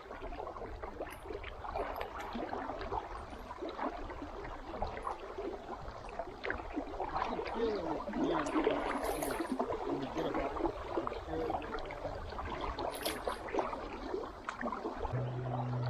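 River water gurgling and splashing around a kayak, with many small irregular splashes. A steady low hum starts near the end.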